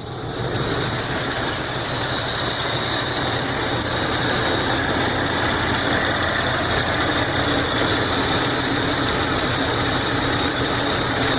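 1981 Buick Electra Limited's engine idling steadily, growing a little louder over the first second or two and then holding even, with no belt squeak.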